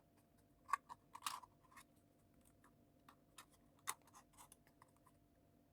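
Faint, scattered snips and scrapes of scissors trimming thin card, with a few sharper clicks.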